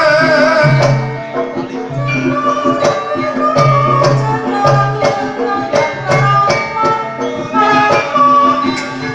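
Javanese gamelan music accompanying a dance. Sharp hand-drum strokes sound over ringing pitched tones and a repeating low note pattern.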